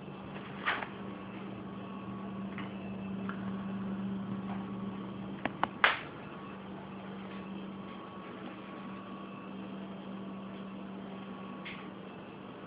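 Steady low hum, with a few faint clicks and a brief knock about six seconds in.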